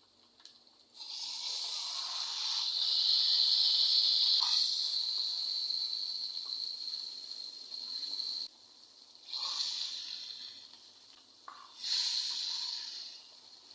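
Food sizzling in hot oil in a pan during a stir-fry. There is one long spell of about seven seconds that cuts off suddenly, then two shorter spells.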